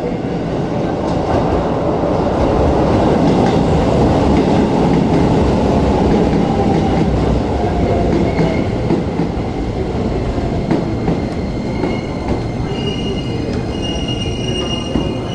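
Keisei 3000 series electric train pulling into the platform: a loud rumble of wheels on the rails, with the traction motors' whine falling in pitch as it brakes. Thin high squeals come in near the end as it slows.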